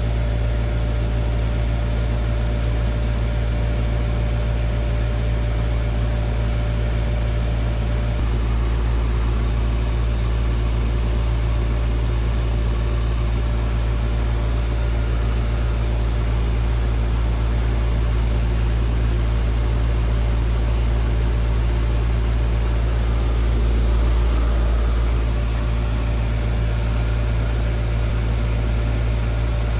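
Outdoor unit of a 2013 GMC (Goodman) 3.5-ton heat pump running steadily in heating, a loud low hum with a few steady tones over it. One tone changes about a third of the way in, and the sound swells briefly near the end.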